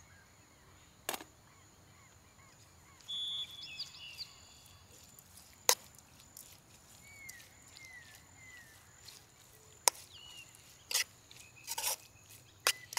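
About six sharp knocks at irregular intervals, two of them much louder than the rest, with small birds chirping in the background.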